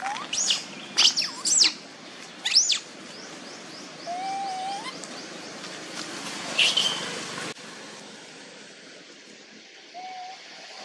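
Birds calling: several loud, high sweeping chirps in the first three seconds and another about two-thirds of the way through, with a short rising whistled note repeated twice, over a faint outdoor background.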